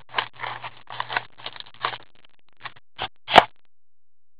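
Plastic wrap on a trading-card box rustling and crinkling as it is handled and torn open, in a run of short irregular rustles. It ends in a few clicks and one sharp knock about three and a half seconds in.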